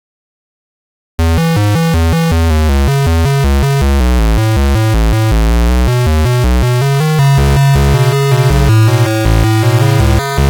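About a second of dead silence, then loud electronic synthesizer music starts: a fast run of short stepped notes over a deep bass line.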